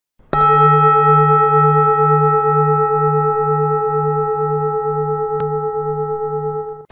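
A Buddhist bowl bell struck once, ringing on with a slowly wavering low hum under several steady higher tones, fading gently and then cut off near the end.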